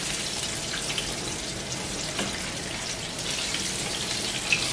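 Chicken wings deep-frying in hot oil: a steady bubbling sizzle, with a few faint clicks of a metal utensil against the pot.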